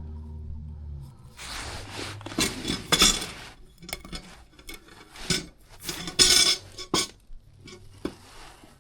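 Metal tools and furnace parts clinking and rattling as they are handled, in irregular bursts with sharp clicks. A steady low hum runs underneath at the start and stops about a second in.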